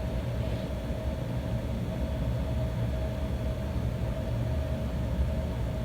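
Steady low background rumble with a faint, even hum above it, unchanged throughout.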